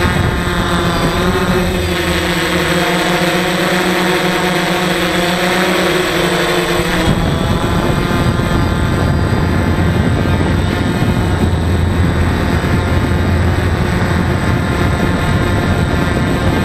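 DJI Phantom quadcopter's motors and propellers whining close to the onboard camera's microphone, with rushing air. The motor pitch shifts up and down for the first several seconds, then gives way to a steadier, noisier hum about seven seconds in.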